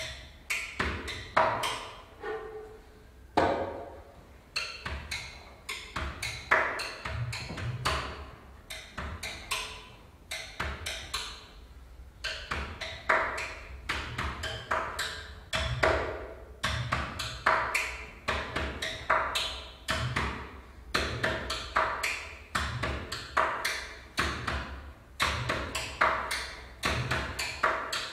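Hand drum played with the hands in quick, irregular strokes: sharp dry clicks mixed with short ringing tones.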